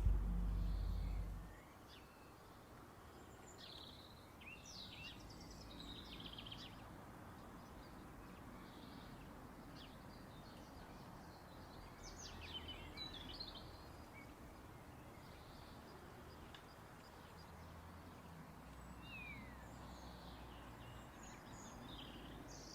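Faint birds chirping here and there over a steady background hiss; a loud low hum cuts off about a second and a half in.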